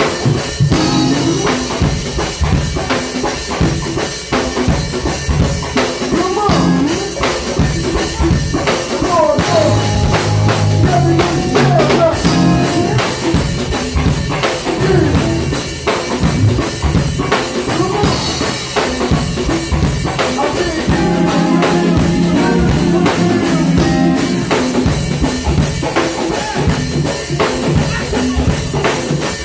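Live band playing with a drum kit keeping a steady beat under electric guitar, keyboards and congas, with singers at times.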